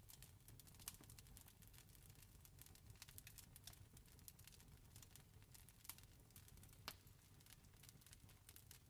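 Campfire crackling: irregular snaps and pops of burning wood over a low, steady rumble, with a few louder pops standing out.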